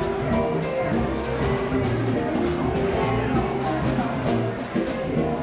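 Band music with guitar and a steady drum beat.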